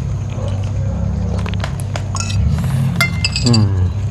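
Spoon and chopsticks clinking against glass bowls while eating: a few light clinks over a steady low hum.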